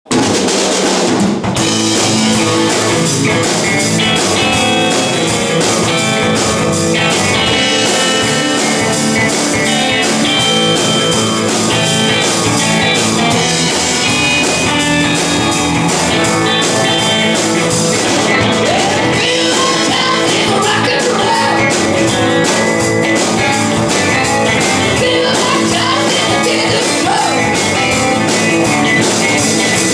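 A live rock band playing loudly: two electric guitars, an electric bass and a drum kit with cymbals, in a steady rock-and-roll groove.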